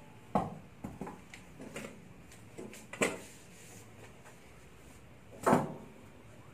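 Trays and wrapped packs being loaded into a stainless-steel autoclave chamber: a string of separate knocks and clatters, the loudest a heavier thump about five and a half seconds in.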